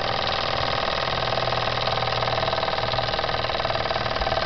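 Jensen 75 toy steam engine running steadily on superheated steam, free with its drive belt off, with a fast, even beat from its moving parts and exhaust.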